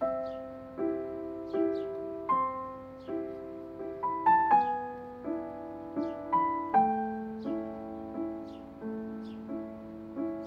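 Gentle piano music, a new note or chord struck about every 0.7 seconds and each left to die away.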